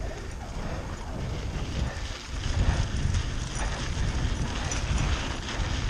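Mountain bike rolling over a rough, sandy dirt road, with an uneven rattle and knocking from the bike over the bumps and a steady low rumble underneath.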